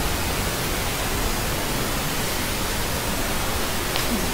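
Loud, steady hiss of static noise, spread evenly from low to high pitch, with a faint click about four seconds in.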